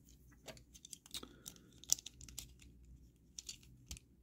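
Small hard-plastic toy parts clicking and tapping as they are folded and snapped into place by hand: an irregular run of light clicks, the sharpest about two seconds in, as a Takara Tomy Job Braver mini robot is converted into its police-car mode.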